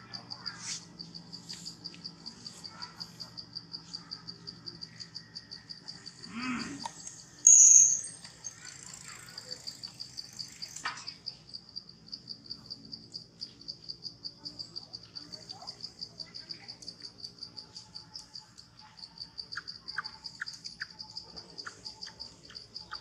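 Insects calling in a steady, high-pitched pulsing chorus, about five pulses a second. A brief loud sharp sound cuts in about seven and a half seconds in, and a few short chirps come near the end.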